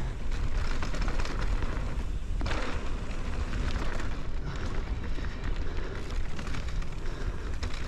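Wind buffeting the microphone over the rumble of knobby tyres rolling down a dirt trail on a mountain e-bike, with a sharper clatter of the bike over a bump about two and a half seconds in.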